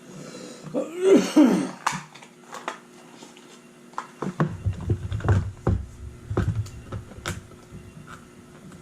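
A brief wordless voice sound about a second in, then scattered light clicks and knocks of items from a speed-cube unboxing being handled, with low bumps on the microphone in the middle.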